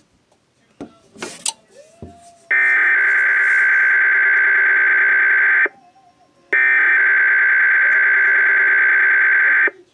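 Emergency Alert System SAME data bursts: the screechy two-tone digital header of the IPAWS Required Weekly Test sent out again by the EASyCAST relay. After a few faint clicks, two loud bursts of about three seconds each play with about a second of silence between them.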